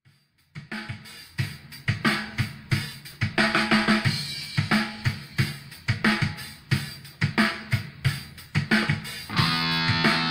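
Background music: a steady drum-kit beat with kick and snare, joined by guitar and other sustained instruments near the end.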